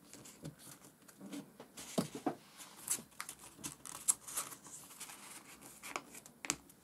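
Origami paper being folded and tucked by hand: scattered faint crinkles and rustles, with a few sharp little clicks as the paper is creased and pressed down.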